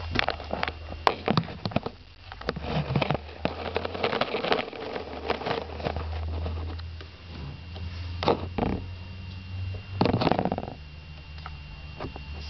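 Zebra finch moving about in a bathtub: irregular scratches and taps, with a few louder rustling sounds about eight and ten seconds in, over a steady low hum.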